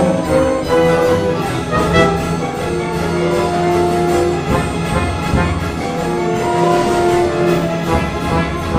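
Orchestral music score with brass, playing long held notes over a steady low accompaniment.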